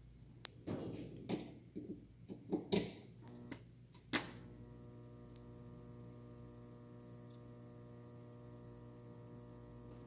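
Handling knocks and clicks for the first few seconds, then a sharp click a little after four seconds in. A steady electrical hum of several fixed tones with a faint high whine follows, from the powered microwave magnetron's filament supply.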